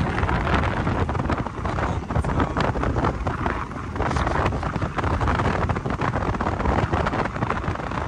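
Wind buffeting the microphone on a moving motorbike: a dense, heavy rumble of noise that keeps fluttering in loudness, with no clear engine note standing out.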